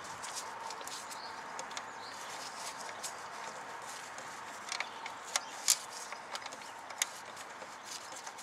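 A few light clicks and taps of metal parts as a fitting is screwed by hand onto the high-pressure fuel pump of a 2.0 TFSI engine, over a steady background hiss. The sharpest clicks come a little past the middle.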